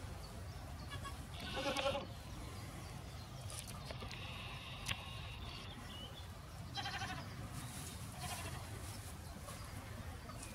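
Goat bleating: a loud bleat about two seconds in, another about seven seconds in and a fainter one soon after, with a single sharp click about five seconds in.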